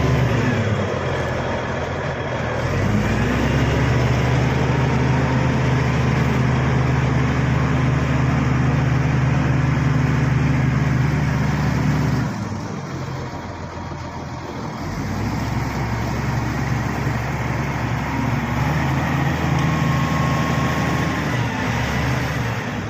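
Bulldozer's diesel engine working, its pitch rising about two seconds in, dropping back a little past halfway and climbing again a few seconds later.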